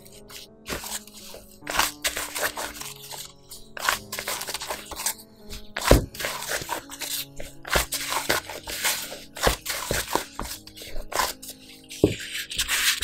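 Yeast dough being kneaded by a gloved hand in a plastic bowl: a run of irregular short noises of the dough being pressed and worked against the bowl, over background music.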